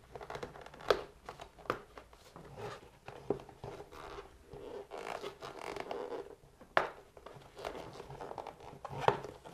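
Rubber air-intake boot being worked into the airbox of a KTM SX-F 250 subframe by gloved hands: irregular rubbing and scraping of rubber against the box, with a few sharp clicks as the rubber lip is threaded into its slot.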